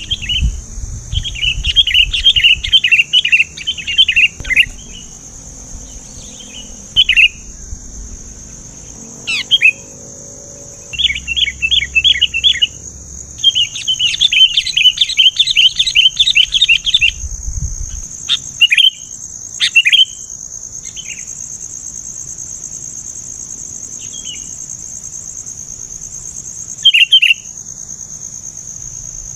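Sooty-headed bulbul (kutilang) giving rapid chattering calls in bursts of one to several seconds, with short single calls in between. A steady, high insect drone runs under it.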